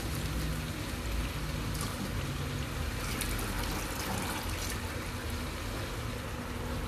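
Water trickling and splashing into a steel basin as handfuls of wet chopped sweet potato leaves (matembele) are squeezed out and lifted, heaviest about halfway through.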